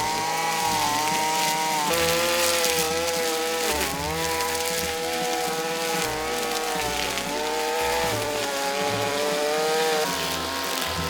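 Small petrol engine of a handheld power tool running steadily at high revs. Its pitch shifts as the load or throttle changes, with a brief dip about four seconds in.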